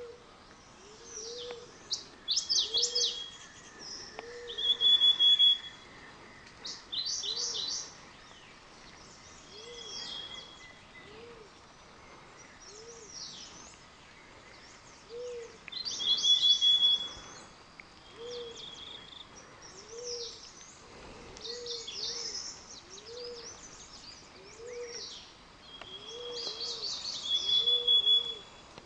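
Forest birds calling: short low hoots repeat about once a second throughout, while other birds break in with loud bursts of high chirping songs and trills every few seconds.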